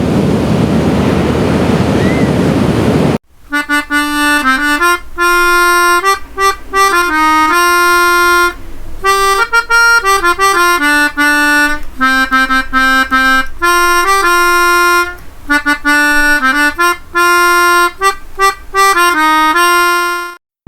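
Music: a melody of held single notes with a reedy, many-overtoned tone. It starts about three seconds in, right after a loud rushing noise cuts off abruptly.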